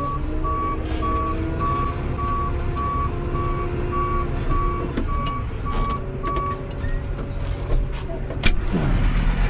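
Tractor engine running, heard from inside the cab, with a reversing alarm beeping about twice a second that stops about two-thirds of the way through. Near the end a sharp click as the cab door opens, and the engine grows louder.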